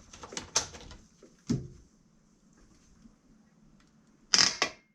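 Several sharp clicks and knocks, the loudest a double knock near the end; no engine is running.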